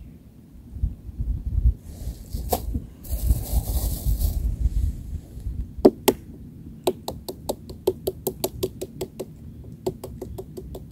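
Handling sounds: a plastic bag rustling, then a quick, even run of light knocks, about six a second, with a few more near the end.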